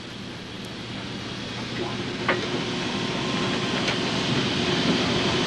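Sawmill machinery running and growing steadily louder, as if coming back up to speed, with a steady hum joining about two seconds in and a single sharp knock.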